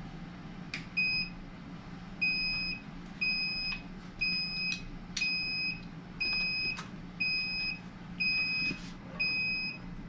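BN-Link digital temperature controller beeping its error alarm: a high electronic beep about once a second, nine times, starting about a second in. It is signalling an error because the temperature probe is not plugged in. A steady low hum runs underneath.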